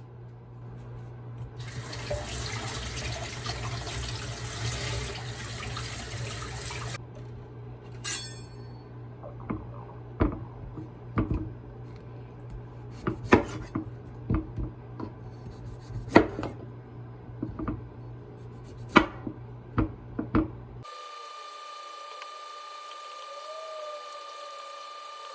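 Water running from a tap for about five seconds, then scattered sharp clicks and knocks of objects being handled. Near the end a steady tone comes in.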